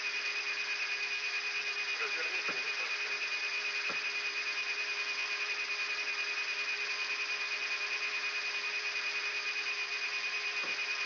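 Cockpit voice recorder background from a Yak-42D: a steady hiss carrying a constant high whine and a lower steady hum, pulsing slightly and evenly. A few faint knocks come about two and a half, four and ten and a half seconds in.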